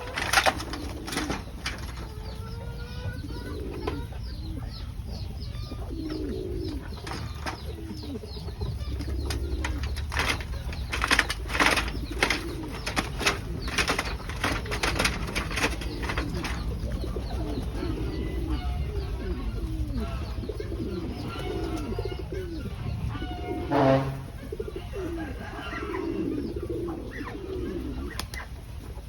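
Domestic pigeons cooing over and over, with sharp clatters and wing flaps in between, thickest in the middle, and one louder call near the end.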